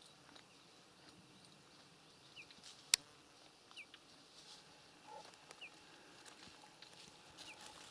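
Faint outdoor ambience with a bird repeating a short, high, downward call every second or two, and a single sharp click about three seconds in.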